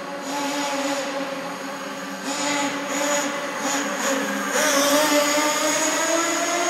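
Kyosho Fazer FXX radio-controlled car's small nitro engine running through its aftermarket exhaust, the pitch rising and falling as the throttle is worked. There are short throttle bursts through the middle, then a louder, longer climb in pitch from about two-thirds of the way in.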